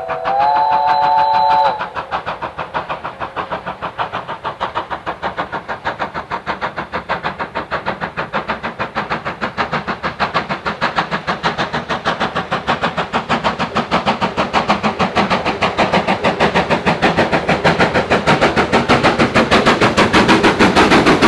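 A steam locomotive's whistle sounds for a moment, then the two-cylinder exhaust of a BR Standard Class 5MT 4-6-0 beats rapidly and evenly, growing steadily louder as the engine approaches working hard with a train of coaches.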